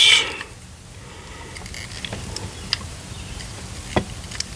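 Small plastic toys being handled and turned over in the hands: a few scattered light clicks and taps, with one sharper click about four seconds in, over a low steady hum.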